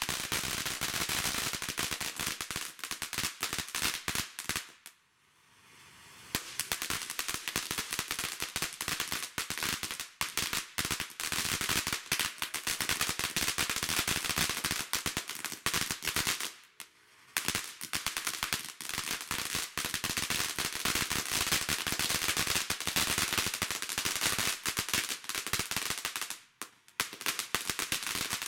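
TNT Crickets firework crackling in a dense, rapid run of small sharp bangs, many a second. It breaks off briefly about five seconds in, again around seventeen seconds, and once more near the end, then picks up again each time.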